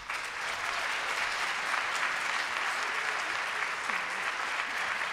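Audience applauding steadily, the clapping starting right at the start and holding at an even level throughout.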